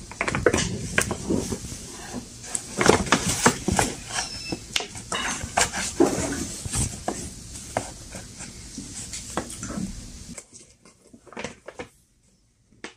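Brown kraft paper gift bag being handled and picked open by hand, with a dense run of crinkling, crackling and tapping. About ten seconds in, everything goes much quieter, leaving only a few faint taps.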